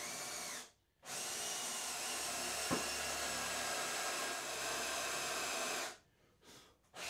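Cordless drill spinning a Forstner bit as it bores a hole into wood. A short run stops just under a second in, then a longer run of about five seconds has a single sharp click near its middle, and a brief burst comes near the end.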